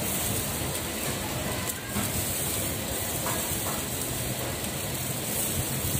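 Steady sizzling hiss of food cooking on a barbecue grill, with a few faint crackles.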